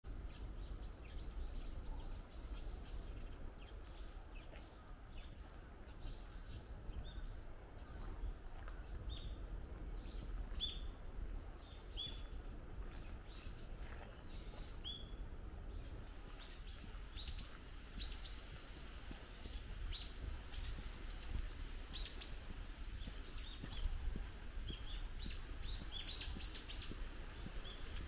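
Wild birds chirping and calling, many short, high chirps coming thicker after about halfway, over a low steady rumble of wind on the microphone.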